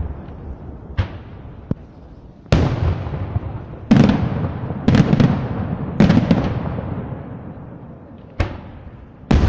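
Aerial firework shells bursting, about nine sharp booms at uneven gaps of one to one and a half seconds, each trailing off in a long echoing rumble; the heaviest bursts come in a cluster around the middle.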